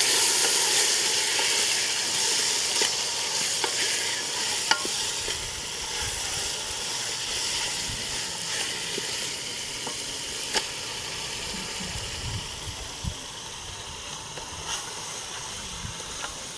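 Duck curry frying in hot oil in a pot. The sizzle is loudest at first and slowly dies down, with a few sharp clicks of stirring.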